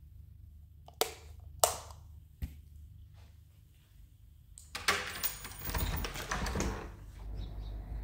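Three sharp clicks about a second, a second and a half, and two and a half seconds in, then a couple of seconds of rustling and clattering, over a low steady hum.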